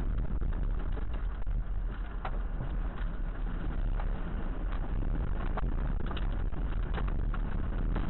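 Steady, heavy low rumble of storm wind and vehicle noise on a dash cam's microphone, with scattered sharp ticks and knocks throughout.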